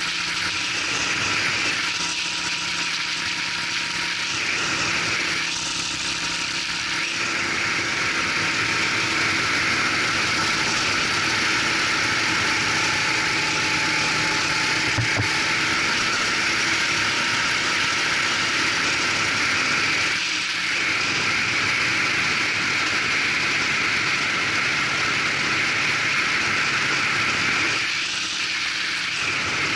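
Racing kart engine running on track under a steady rush of wind noise on the onboard microphone. The engine pitch drifts up and down with speed, and the engine dips briefly a few times.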